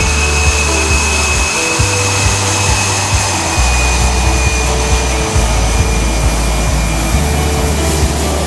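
Background music with a deep bass line that changes note in steps, over the steady high whine and hiss of a fighter jet's turbofan engine running.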